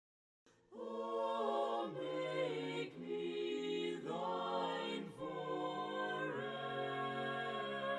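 Soft a cappella choir singing a slow hymn in long held chords that change about once a second, starting about a second in.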